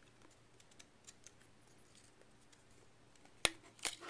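A 35mm film cartridge being fitted into the film chamber of a Minolta XG-M SLR: faint handling ticks, then two sharp clicks about half a second apart near the end, the first the louder, as the cartridge goes into place.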